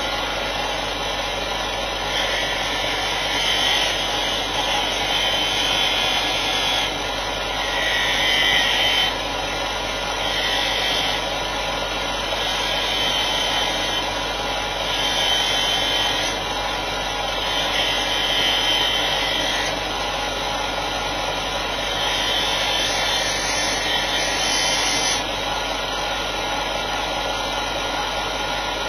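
Workzone bench grinder/sander motor running steadily, with a workpiece pressed against it in repeated passes of one to three seconds each, giving a louder rasping sound during each pass.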